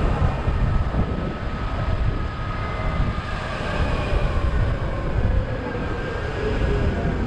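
Open-top double-decker bus on the move, heard from its open upper deck: a steady engine rumble with faint whining tones above it.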